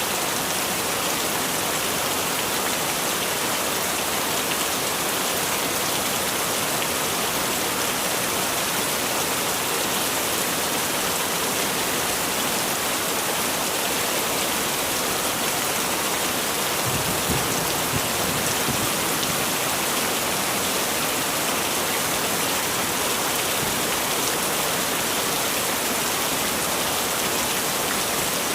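Heavy rain falling in a steady, even hiss. About two-thirds of the way in, a brief low rumble rises under it for a couple of seconds.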